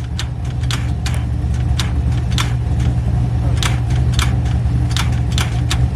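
A car engine running steadily with a low hum, with irregular sharp clicks a few times a second over it.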